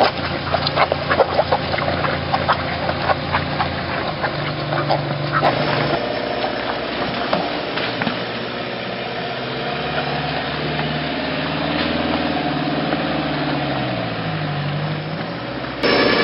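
Off-road 4x4 engines working through deep mud. For the first five seconds a steady engine note sits under many sharp cracks and snaps; after that a Suzuki Samurai's engine revs up and down as it crawls through the mud.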